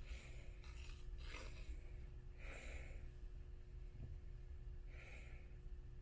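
Soft, breathy breathing close to the microphone: about four breaths, at the start, about a second and a half in, about two and a half seconds in and about five seconds in, over a steady low rumble and a faint hum.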